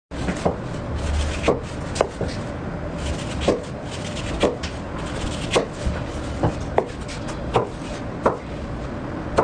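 A knife cutting through dragon fruit on a cutting board, the blade knocking on the board about ten times at an uneven pace.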